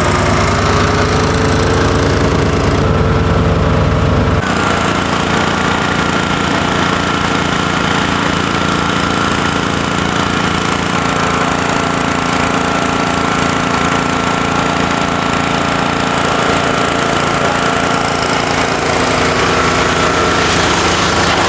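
Engine-driven pressure washer running steadily, its motor drone mixed with the hiss of the water spray. The deepest part of the drone eases a little about four seconds in.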